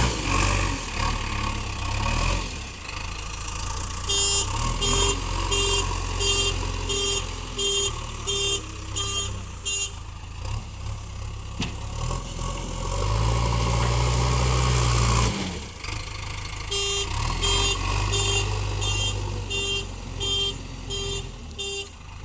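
JCB backhoe loader's diesel engine running, rising in revs about midway, with a reversing alarm beeping in two runs of about ten evenly spaced beeps, about three every two seconds.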